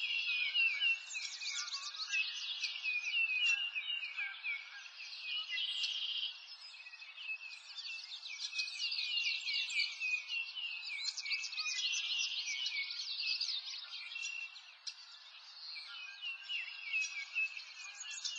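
A dense chorus of songbirds chirping and twittering: many short, high chirps and quick sweeps overlapping without pause.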